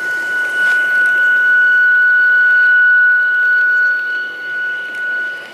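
A garden-scale model Bernina Allegra electric railcar running past with a steady high-pitched whine. The whine is loudest as the front of the train passes close by and eases off near the end as the train moves on.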